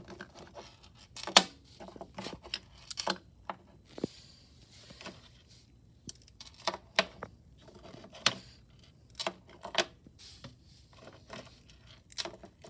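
Small plastic gummy-bear lip balm keychains being picked up and set down one by one on a wooden desk: irregular light clacks and taps, with the jingle of their metal ball chains and rings.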